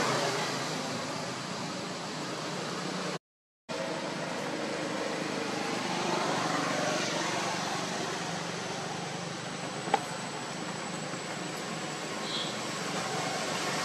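Steady outdoor background hiss with no clear source. It cuts out to dead silence for about half a second a little after three seconds in. A single sharp click comes near ten seconds and a brief faint high chirp about two seconds later.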